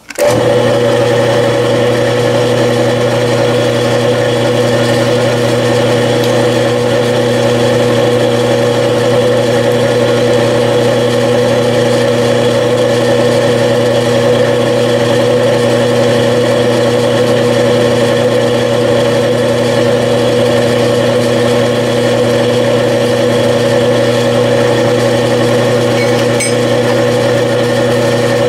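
Belt-driven milling machine switching on and running steadily, a constant hum with a mid-pitched whine, while its spindle drives a 1/8-inch twist drill into square metal bar stock.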